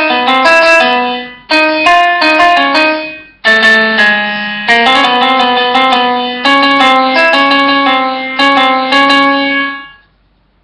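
Background music played on a piano-like keyboard, in short phrases of sustained notes and chords, breaking off about ten seconds in.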